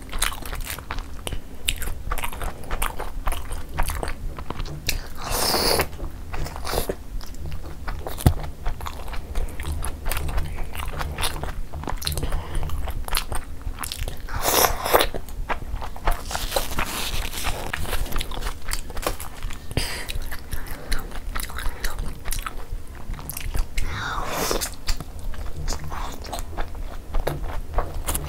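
Close-miked wet chewing and mouth sounds of steamed chicken momos soaked in gravy, eaten by hand: a steady run of small wet clicks, broken by a few louder, longer wet sounds of about a second each.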